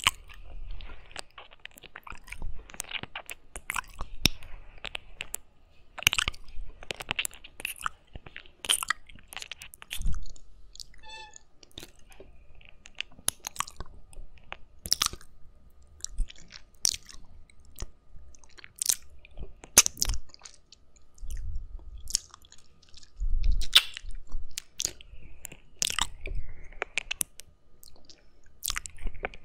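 Wet mouth sounds right at a binaural microphone's silicone ear: licking, sucking and mouthing on the ear, heard as irregular sharp wet clicks and smacks, with a few dull low thumps in the second half.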